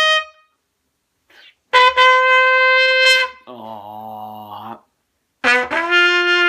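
Trumpet playing long held notes. One note ends just after the start, a higher note is held for about a second and a half, a lower wavering tone follows, and near the end a note slides up into a held lower pitch.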